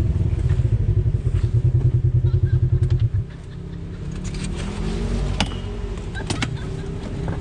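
Polaris RZR side-by-side's engine running on throttle with a steady pulsing, then dropping off sharply about three seconds in to a lower, quieter run as the throttle eases. A few sharp knocks come through later on.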